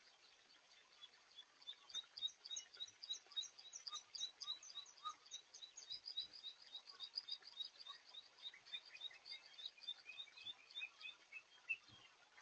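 A bird's long, rapid run of high chirps, several a second, that steps lower in pitch near the end, over faint outdoor background hiss.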